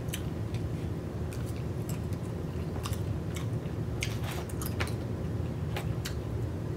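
Close-miked chewing and mouth sounds of someone eating oysters, with scattered wet clicks and smacks over a steady low hum.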